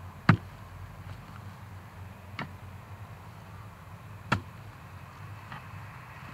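Hoe blade chopping into the soil to dig up sweet potatoes: three sharp strikes about two seconds apart, the first the loudest.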